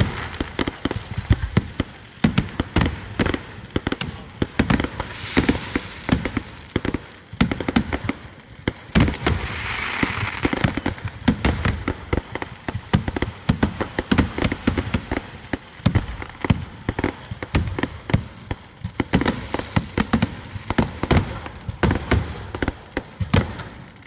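Fireworks going off in rapid, irregular succession: a dense run of bangs and crackles, with a brief rushing hiss about ten seconds in.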